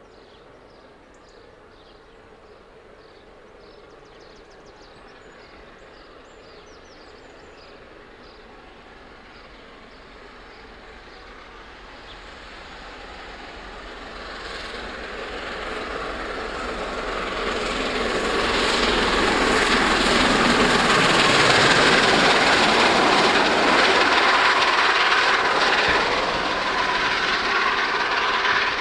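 A1 Pacific steam locomotive 60163 Tornado, with its support coach, approaching and passing. Its noise builds from faint to loud, peaking about two-thirds of the way through, then eases a little as it goes by.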